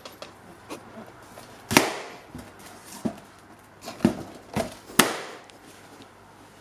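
Two rubber balloons bursting with sharp bangs, about 1.8 s and 5 s in, with smaller clicks and knocks of rubber being handled in between.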